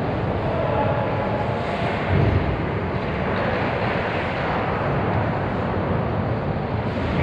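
Steady rink noise during an ice hockey game: an even rushing haze with a low rumble and no single sound standing out.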